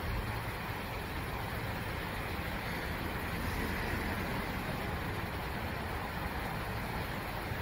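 Steady road traffic noise, swelling slightly as a vehicle goes past a few seconds in.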